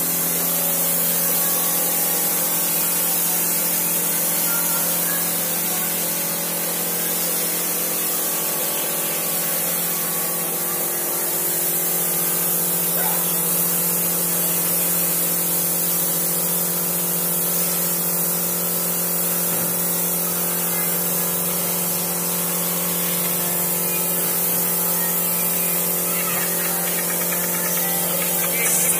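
Gravity-feed paint spray gun blowing wood polish onto panelling: a steady hiss of compressed air, with a steady hum underneath.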